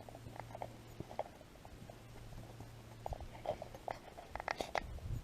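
Footsteps crunching on a forest hiking trail, irregular and uneven, coming thicker in the last two seconds.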